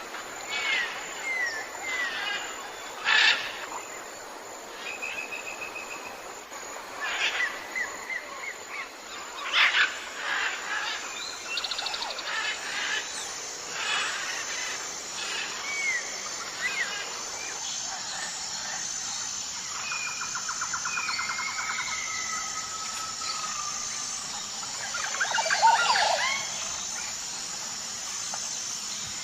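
A chorus of jungle birds calling: short chirps, sliding whistles and, in the second half, rapid trills, over a steady high background tone. A louder burst of calls comes near the end.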